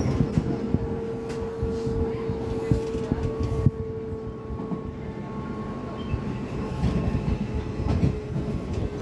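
Amsterdam metro train running along the track, heard from inside the car: a steady rumble of wheels on rail with scattered clicks and a steady motor whine that fades about two thirds of the way through.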